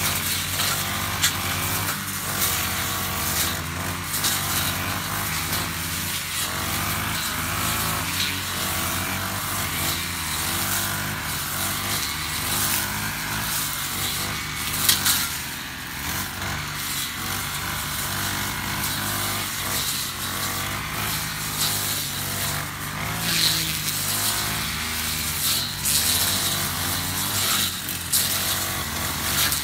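Honda UMK450T brush cutter's GX50 four-stroke engine running hard as its two-tooth blade cuts tall grass, the engine pitch shifting up and down as the throttle is worked. Short sharp swishes and ticks come through as the blade strikes the grass stems.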